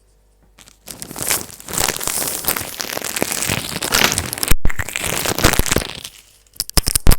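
Something crumpled and crinkled hard right against the microphone, a dense loud crackling, followed near the end by a few sharp clicks or knocks.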